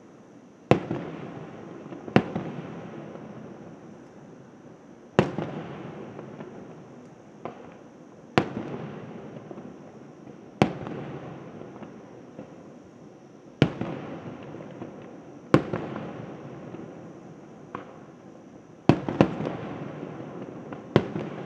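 Aerial fireworks shells bursting: about a dozen sharp bangs at uneven intervals of one to three seconds, each followed by a fading rumble, with two bangs close together near the end.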